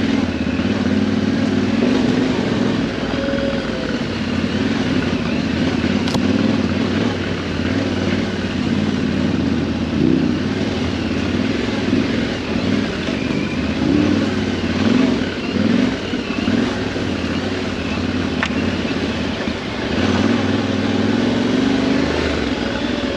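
Adventure motorcycle's engine pulling in a low gear along a rough dirt track, the revs rising and falling as the throttle opens and closes, with a few short surges of revs partway through. The bike is a Yamaha Ténéré 700 with a parallel-twin engine.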